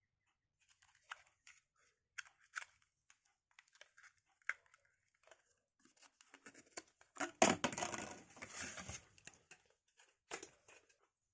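Computer parts and their packaging being handled: scattered light clicks and crinkles, then a louder stretch of crinkling and tearing lasting about two seconds, starting about seven seconds in.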